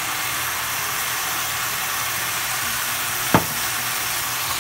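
Udon noodles with cabbage, bacon and shrimp sizzling steadily in a hot pan, with light soy sauce just drizzled over them. There is one sharp knock a little after three seconds.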